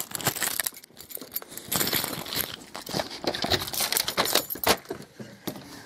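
Keys jangling on a metal key ring: a run of small metallic clicks and rattles.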